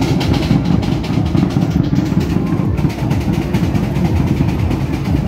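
Drums of a marching percussion group playing a fast, dense, steady beat, mixed with crowd noise.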